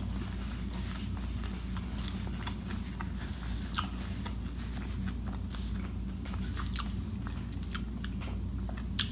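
Close-miked chewing of a mouthful of pizza with the mouth closed: soft wet smacks and small crunches throughout, with one sharper click near the end.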